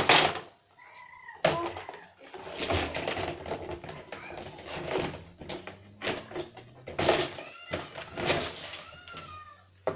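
Plastic fidget toys knocking and clattering as they are handled and packed into a container, with repeated sharp knocks, the loudest about one and a half seconds in. A few short, squeaky pitched sounds come in between, most plainly near the end.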